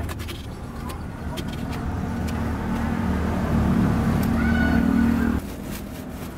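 A motor vehicle engine running close by, with a steady low hum that grows louder and then cuts off abruptly about five seconds in.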